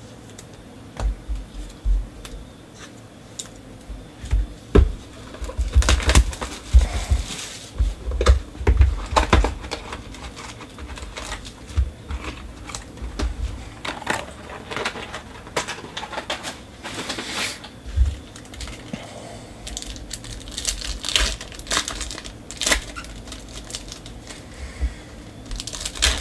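Foil trading-card packs crinkling and tearing as they are ripped open and handled, with irregular crackles and a few dull knocks on the table.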